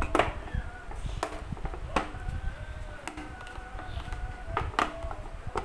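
Sharp plastic clicks and taps, about half a dozen spread over a few seconds, as hands press and fit parts into a PVC-pipe wall clock.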